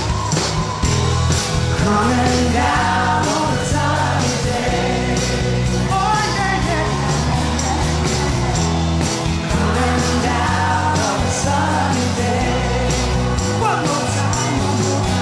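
Live rock band playing a mid-tempo song with a steady drum beat and bass, a man singing the lead vocal over it.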